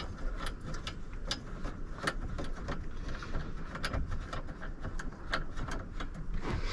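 Light metallic clicks and taps, irregular and several a second, as loosened 8 mm bolts are unthreaded by hand and handled, over a low steady rumble.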